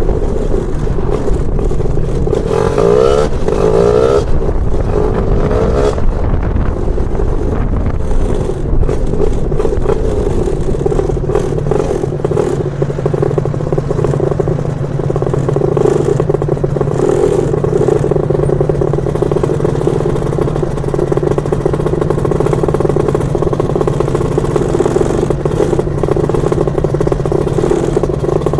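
Two-stroke engine of a Lambretta scooter with a BFA 325-type kit, running and revving with a rising pitch a few seconds in, then settling into steady running.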